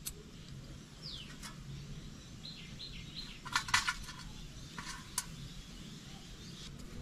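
Small metallic clicks and rattles from screws being fitted into the float bowl cover of a Rajdoot's Mikarb carburettor, in two short clusters near the middle, with a few faint bird chirps in the background.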